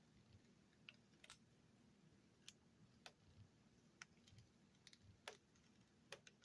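A scattered handful of faint, sharp clicks and ticks over near silence: fingers and a tool picking at the edge of an adhesive tape strip on the laptop's display parts.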